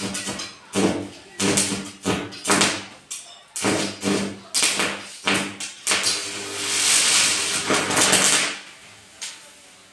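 Electric arc from a homemade mains welder that uses a bucket of salt water as its current limiter, with the electrode struck against an iron pipe. It gives a string of short crackling, buzzing strikes, then a steady hissing arc held for about two and a half seconds that stops near the end.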